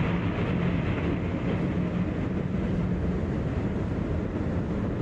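Ship's engines heard on a ferry car deck, a steady mechanical rumble with a constant low hum.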